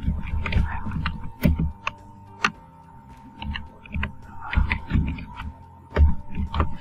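Computer keyboard typed on slowly: about a dozen separate keystrokes at uneven spacing, each a dull tap, over a faint steady hum.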